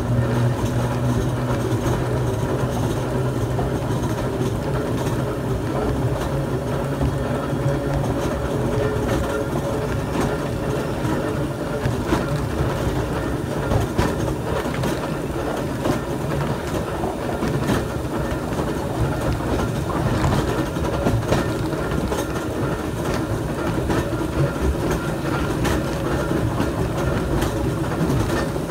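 Brooklyn Rapid Transit open streetcar 4573 running along the track, heard from on board: wheels clicking and clattering over the rail, with a low steady hum that fades away about eight seconds in.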